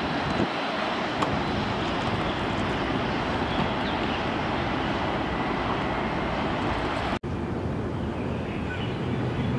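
Steady jet aircraft engine noise at an airport, dropping out for an instant about seven seconds in and then going on as the engines of a Boeing 787 climbing out after takeoff.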